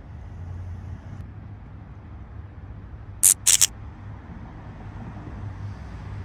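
Two short hissing whooshes in quick succession about three seconds in, an editing sound effect for an animated neon thumbs-up graphic. Under them runs a steady low outdoor rumble.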